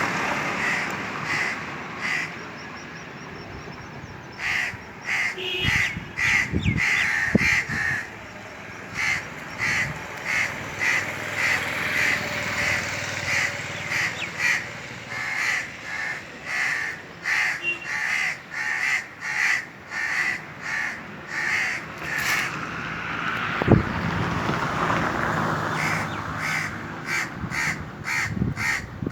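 Indian crows cawing in long runs of short, harsh calls repeated about twice a second, with brief pauses between runs. A wash of rushing background noise swells near the end.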